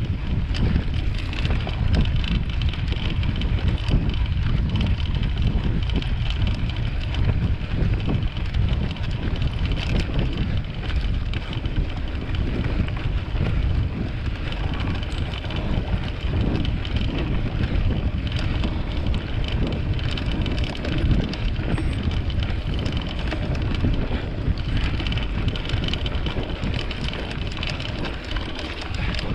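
Mountain bike ridden along a trail, heard from a camera on the bike or rider: wind buffeting the microphone as a steady rumble, over tyre noise and the light rattle of the bike.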